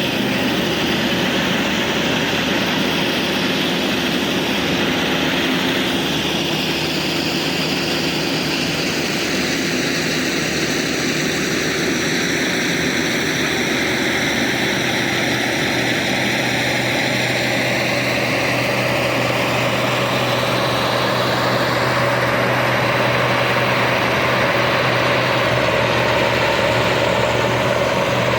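A heavy engine running steadily, with a constant low hum and a tone that slowly shifts up and down.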